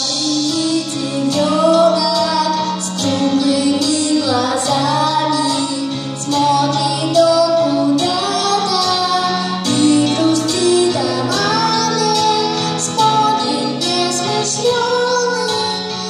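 Music: a female voice singing a slow lullaby melody over instrumental accompaniment with steady held bass notes.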